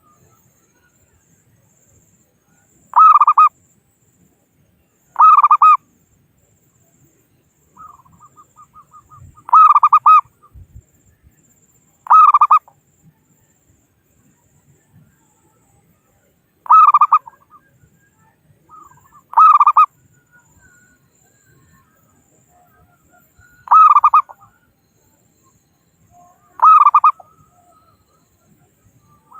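Zebra dove (local perkutut) cooing its territorial call, the kind used to lure rival males. Loud calls come in pairs a few seconds apart, eight in all, with a soft quick trill of notes before one pair.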